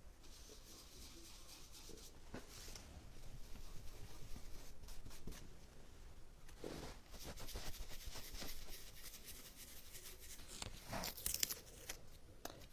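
Faint rustling, scratching and light taps of hands at work with a stencil, tape and paint, with a soft knock about seven seconds in and a couple of sharper clicks near the end.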